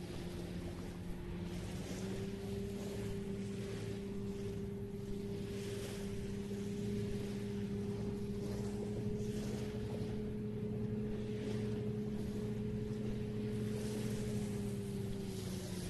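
Steady motor hum that steps up a little in pitch about two seconds in and drops back near the end, over a hiss of wind and gentle surf.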